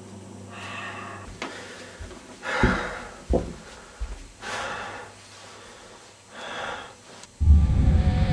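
A person breathing heavily and raggedly, one harsh breath about every two seconds, with a few dull knocks midway. Loud music comes in abruptly near the end.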